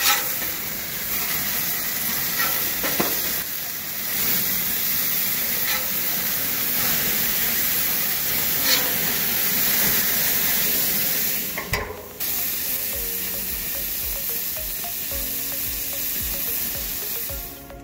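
Hamburger patties sizzling hard on a hot gas grill, fat spitting over the flames in a steady, crackling hiss that breaks off briefly about two-thirds of the way through.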